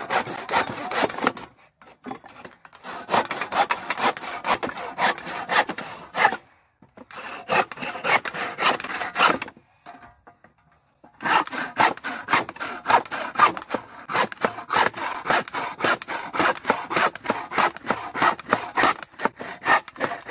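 Stanley hand saw cutting through a thick wooden board with rapid back-and-forth strokes, stopping briefly about two seconds in, again around seven seconds, and for about a second and a half near the ten-second mark.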